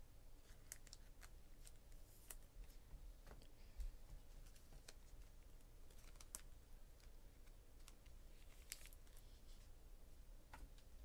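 Faint, irregular clicks and flicks of trading cards being handled and shuffled in the hand, over near-silent room tone with a low hum.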